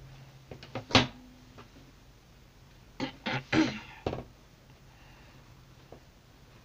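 A person coughing: one cough about a second in, then a quick run of four coughs between about three and four seconds in.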